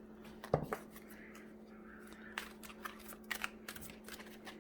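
Oracle cards being handled and shuffled: a knock about half a second in, then scattered light snaps and clicks, over a faint steady hum.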